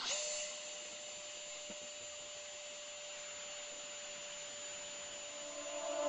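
Electric ducted fan of a Freewing Avanti S RC jet running steadily at high power as the model takes off: a faint, even, high whine with a hiss of air, its pitch unchanging. Music begins to fade in at the very end.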